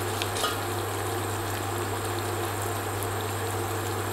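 Sugar syrup boiling in a stainless steel saucepan, a steady bubbling hiss as it cooks to about 116 °C, with a low steady hum underneath. There is a brief click about half a second in.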